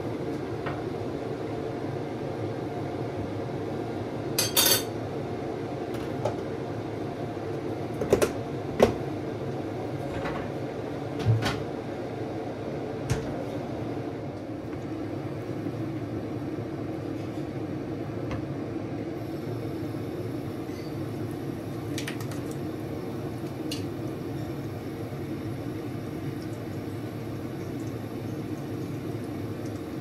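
An air fryer's fan runs with a steady hum. Several sharp clinks and knocks of pots, lids and utensils come in the first half, then fade to an odd faint tap.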